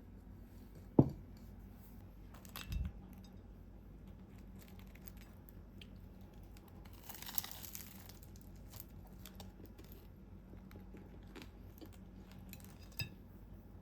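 Small household handling sounds: a sharp knock about a second in, a dull thump soon after, then a brief rustle, with a few faint clicks.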